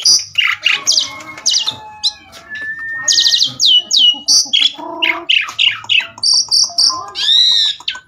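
Asian pied starling (jalak suren) singing a long, varied song: quick downslurred whistles, buzzy chattering notes and a drawn-out whistle about three seconds in.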